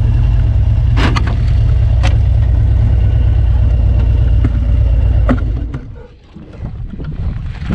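Harley-Davidson V-twin motorcycle engine running with a loud, deep rumble and a few sharp clicks, then dropping away a little under six seconds in.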